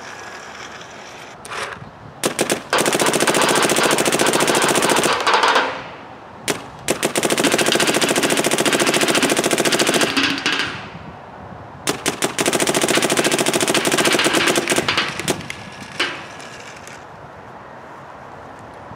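Dye M3+ electronic paintball marker firing in full auto at 20 balls a second: three long bursts of about three seconds each, with a few single shots in between.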